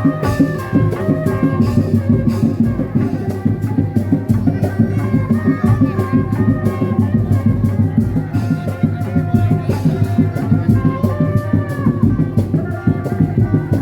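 Live kuda lumping music: dense, driving drumming with a wavering, sliding melody line above it.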